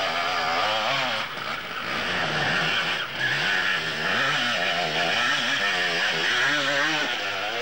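Two-stroke enduro motorcycle engine revving hard off-road, its pitch rising and falling over and over as the throttle is worked.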